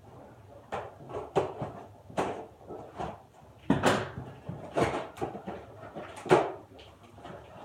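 A box and its packaging being handled and pulled open: a string of irregular knocks, scrapes and rustles, about one or two a second, with a couple of louder thuds.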